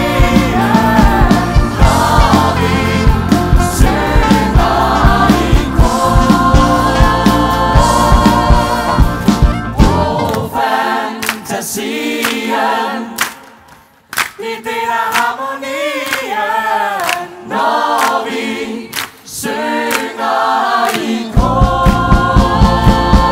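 A large ensemble sings a finale song in chorus over a band with a steady beat. About ten seconds in, the band drops out and the voices sing on nearly unaccompanied, stopping briefly for a moment. The full band comes back in shortly before the end.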